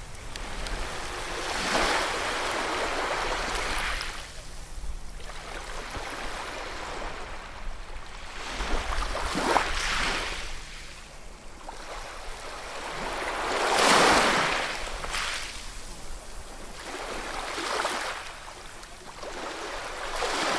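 Ocean waves breaking and washing on a shore, each swell of surf rising and falling every few seconds, the loudest crash about two-thirds of the way through.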